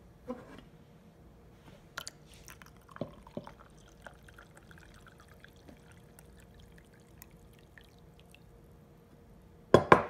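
Tea poured in a thin stream into a ceramic mug with a metal spoon in it, with a few light clinks, then a loud sharp clink near the end.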